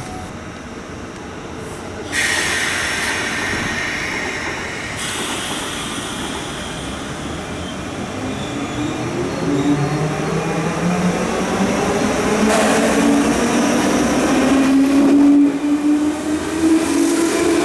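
JR West 201 series electric train on the rails, with a sudden hissing, squealing noise about two seconds in as it draws up along the platform. From about halfway through it accelerates away, its traction motors whining in several tones that climb steadily in pitch.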